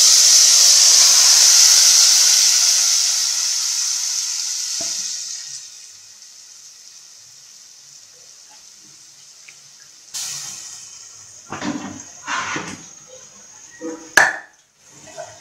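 Loud sizzling as wet tamarind-and-spice-coated fish goes into hot oil in a pan, dying down over about five seconds. Later come a few short knocks and clatters.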